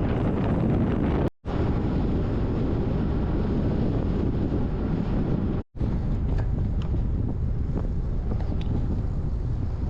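Wind buffeting the microphone over the rumble of a bike rolling on gravel, with a few small stone ticks in the second half. The sound cuts out for an instant twice, about a second and a half in and just before the middle.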